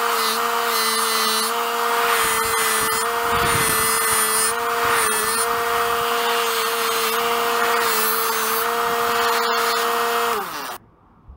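Bench buffer motor running with a Scotch-Brite-type abrasive wheel, a steady hum with a rasping hiss as a steel reed-knife blade is scrubbed against the wheel to strip surface rust. Near the end the motor is switched off and its hum drops in pitch and cuts out.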